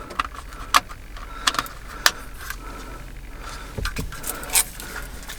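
Scattered light clicks and small rattles of a USB cable and its connector being handled in a car's dash, with a dull knock about four seconds in.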